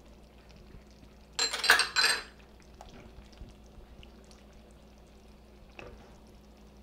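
A short clatter of kitchenware against a stainless-steel pan, two or three clinks with a ringing edge about one and a half to two seconds in, followed by faint stirring of thick tomato sauce with a wooden spoon.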